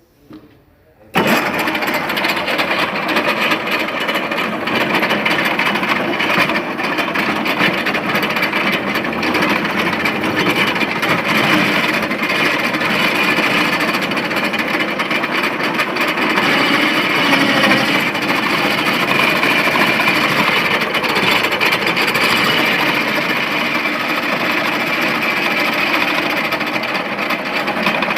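A machine or power tool starts abruptly about a second in and runs steadily with a loud, dense rattling.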